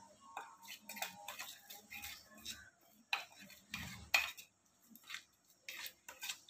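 Faint, irregular clinks and scrapes of a metal spoon stirring in a small steel bowl, mixing chili powder, turmeric and salt with a little water into a paste.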